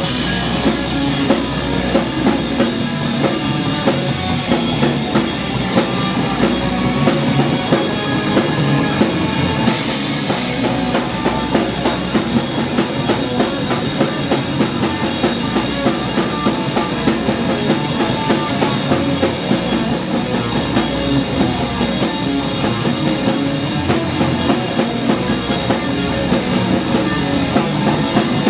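Hardcore punk band playing live, loud and fast: distorted electric guitar, bass guitar and drum kit with rapid, even cymbal and drum strikes.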